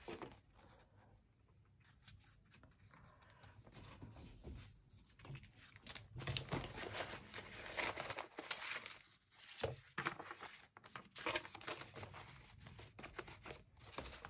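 Dry paper rustling and crinkling as hands rifle through a loose pile of old book pages and sheet-music scraps, in irregular bursts after a quiet first couple of seconds.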